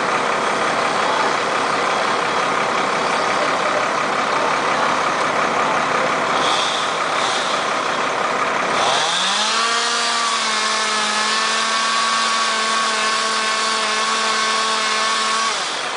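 Engines running steadily. About nine seconds in, one engine revs up quickly to a high, steady pitch, holds it for about six seconds, then drops off.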